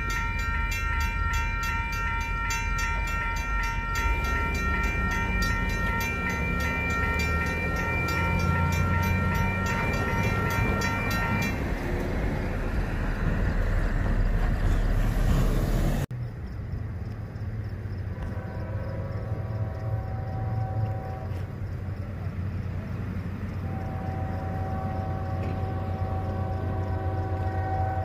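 Railroad crossing bell ringing steadily over a low rumble, stopping about eleven seconds in as the gates go up; road vehicles then pass over the crossing. After a sudden cut, a Union Pacific freight locomotive's horn sounds two long blasts from a distance as the train approaches.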